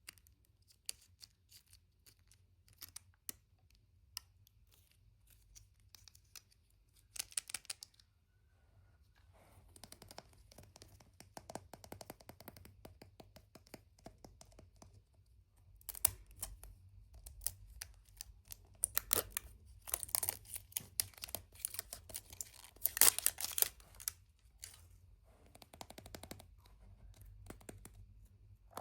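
Hands unwrapping surprise-egg packaging: scattered sharp clicks and taps at first, then busy crinkling and tearing that grows louder through the second half.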